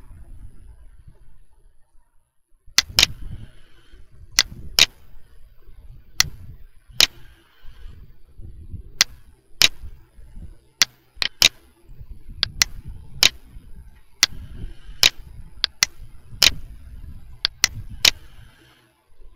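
Computer mouse button clicks, mostly in quick press-and-release pairs, repeated every second or two while a picture is selected and resized, over a low background rumble.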